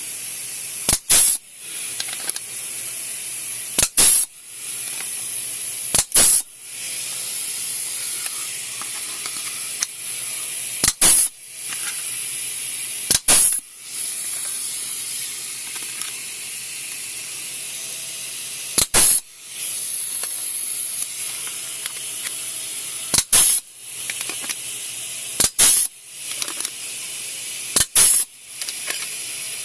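Pneumatic punch/flange tool punching spot-weld holes in sheet steel: about nine sharp double snaps at irregular intervals of two to six seconds. A steady hiss of compressed air runs under them, dipping briefly after each stroke.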